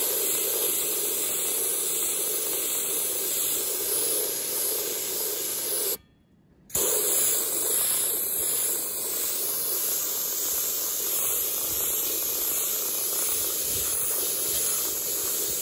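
Harbor Freight abrasive blaster spraying compressed air and abrasive through its nozzle onto a painted cast iron base, a loud steady hiss. The trigger lets off about six seconds in, stopping the hiss abruptly for under a second before it resumes.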